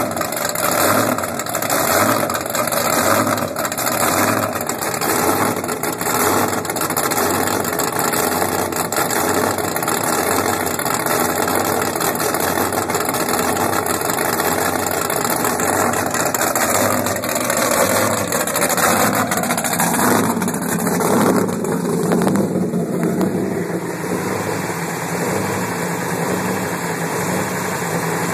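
The carbureted V8 engines of an offshore powerboat running on the trailer through open through-transom exhausts, idling with a lumpy, pulsing beat while hose water cools them. About two-thirds of the way through the engine note rises, then settles into a smoother, steadier run.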